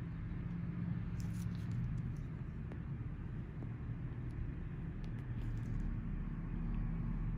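A steady low hum with a few faint ticks scattered over it.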